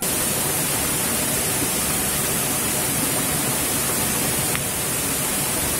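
Steady, unbroken hiss of rushing water from the boulder-strewn stream and waterfall.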